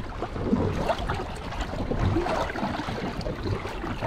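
Seawater splashing and gurgling around a small inflatable dinghy moving across the sea.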